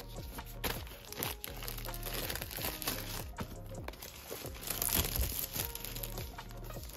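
Clear plastic shrink-wrap on a cardboard blind-box case crinkling and rustling as it is handled and pulled at, loudest about five seconds in, over background music.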